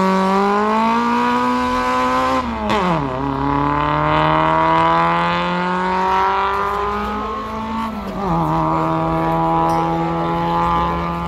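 VW Polo 86C's 1.3-litre naturally aspirated four-cylinder on individual throttle bodies, pulling hard under full load. Its pitch climbs, drops sharply at an upshift about 2.5 s in, climbs more slowly, drops again at a second upshift about 8 s in, then holds steady.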